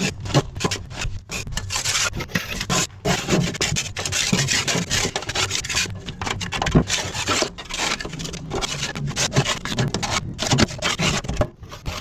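Continuous irregular rubbing and scraping, made up of many quick, uneven strokes.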